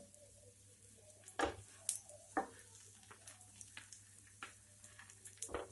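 Sandwich frying in ghee on a tawa over a low flame, with faint sizzling and crackling. A few sharp knocks of a spatula on the sandwich and pan come about one and a half, two and two and a half seconds in, and again near the end.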